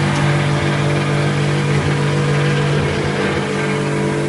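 Self-service car wash machine's high-pressure water pump running with a steady hum, water hissing out of the spray gun.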